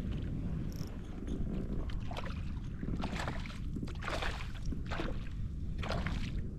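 Wind rumbling steadily on the microphone aboard a kayak, with water washing against the hull about once a second.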